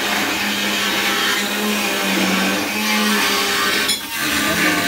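An electric motor-driven machine running steadily: a loud hiss with a low hum that wavers slightly in pitch, dipping briefly about four seconds in.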